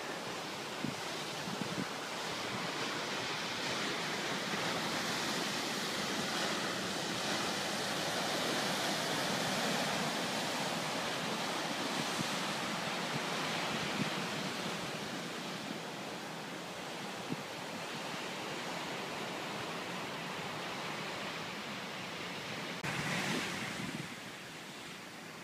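Ocean surf breaking on a rocky shore, mixed with wind through grass and trees: a steady rushing that swells through the middle and eases off toward the end.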